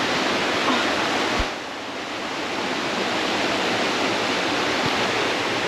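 Steady rushing noise of running water. About a second and a half in there is a low thump, and the rush drops in level for a moment before building back.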